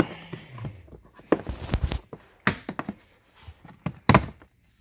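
Plastic interior trim panel of a Tesla Model 3 door sill and pillar being pulled off by hand: a string of knocks and clicks as its snap clips let go, loudest about four seconds in.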